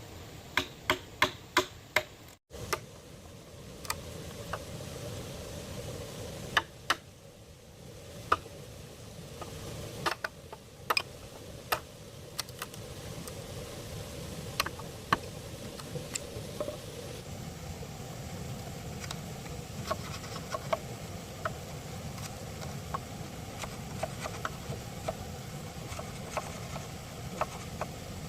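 Hand-tool strikes on bamboo: a run of sharp knocks and taps, quick near the start and then irregular, over a steady low background noise.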